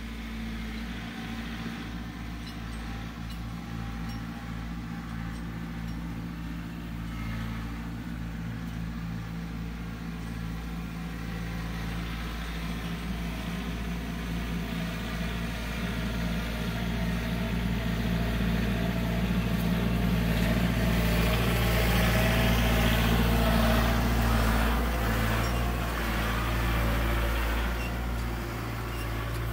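Compact tractor's diesel engine running steadily, growing louder as the tractor drives closer and loudest about two-thirds of the way through.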